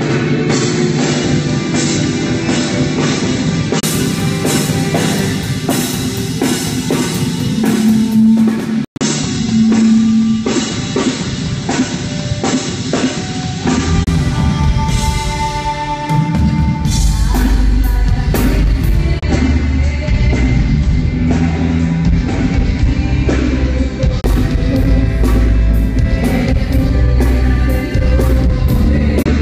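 Live rock band playing loud through a PA: drum kit and electric guitar over bass. The sound cuts out for an instant about nine seconds in, and the bass and kick drum come in much heavier partway through.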